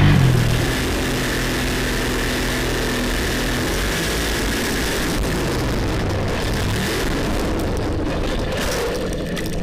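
Formula Offroad hill-climb truck's engine running hard at steady high revs as it climbs a steep sand hill, a dense, even engine noise with a faint steady tone that fades out about halfway through.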